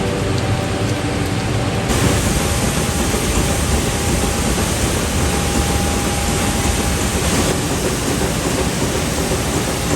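Steady, loud industrial machinery noise in a steel recycling plant: an even rushing noise with a faint steady hum under it, changing abruptly about two seconds in.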